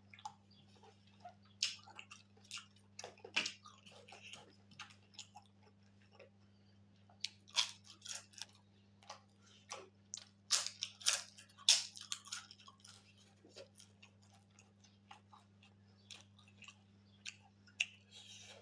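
Close-miked chewing and biting of pork and rice: irregular wet smacks and crunchy clicks, coming thickest about a third and two thirds of the way through.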